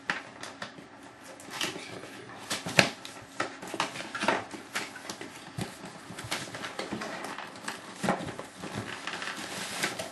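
Cardboard motherboard retail box being handled and opened: irregular scrapes, taps and knocks of cardboard as the inner box is slid out of its outer sleeve, with one sharper knock about three seconds in.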